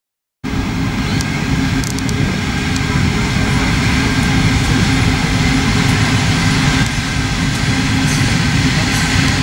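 Diesel locomotive of a freight train running behind the ground: a loud, steady low rumble with a constant hum that cuts in suddenly just after the start.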